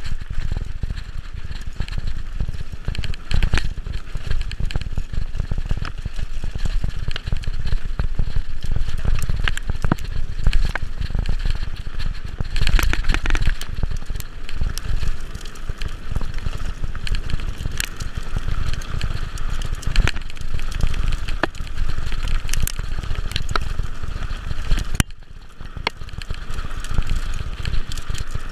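Mountain bike riding down a rough, stony dirt trail: heavy wind rumble on the microphone with many quick clicks and rattles from the tyres over stones and the bike's chain and frame. About 25 seconds in, the rattle eases for a second or two.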